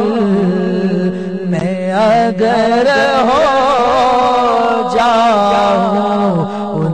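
A man singing an Urdu devotional poem into a microphone, holding long notes that waver up and down over a steady low drone.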